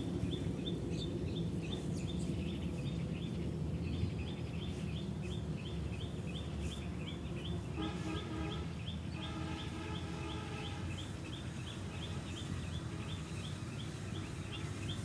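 Outdoor field ambience: a small high chirp repeated rapidly and evenly, about four to five times a second, over a low steady background rumble. Around eight seconds in, a more distant pitched call with overtones sounds briefly, then again about a second later.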